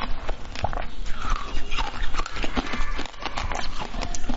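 Wet eating sounds from a strip of jelly coated in passion fruit pulp being sucked and bitten: rapid sticky smacks, slurps and chewing clicks.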